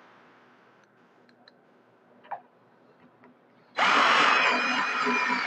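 A WORKPRO 20V cordless drill/driver starts about two-thirds of the way in and runs with a steady motor whine, driving a pan-head pocket-hole screw into wood. Before it there are only faint clicks and a light knock.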